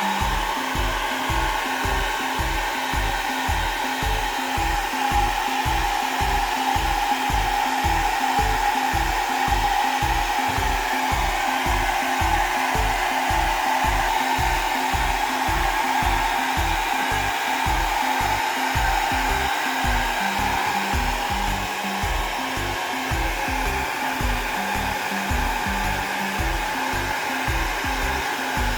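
Hair dryer blowing steadily, drying a wet kitten after its bath, with a regular low pulsing under the blowing.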